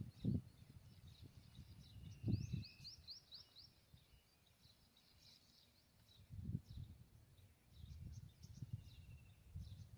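Faint birdsong: a bird gives a quick run of about six rising chirps a couple of seconds in, with scattered chirps after. Several low dull thumps come and go underneath.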